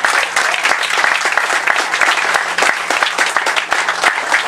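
Crowd applauding: a dense, even patter of many hands clapping that holds steady throughout.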